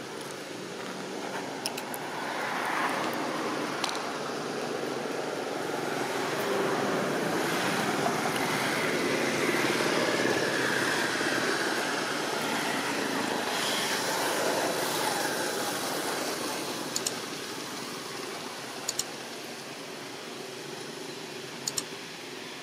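A passing road vehicle: a steady rushing noise that swells over several seconds and then fades away, with a few faint clicks near the end.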